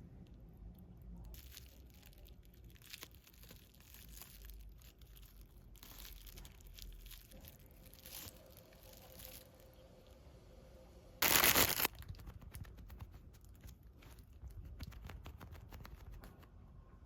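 Plastic packaging crinkling and rustling with small clicks, and one loud tearing sound lasting about half a second around eleven seconds in.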